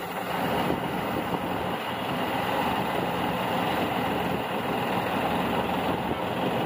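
A combine harvester at work on maize and a John Deere tractor, their diesel engines running in a steady hum with no distinct knocks or changes.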